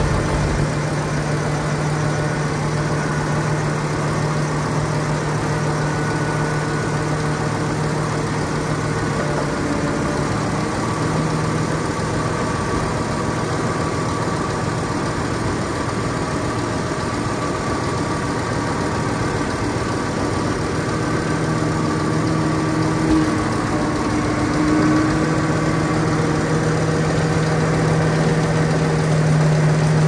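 Heavy diesel engines of earthmoving machinery running steadily at low revs, with small shifts in pitch now and then.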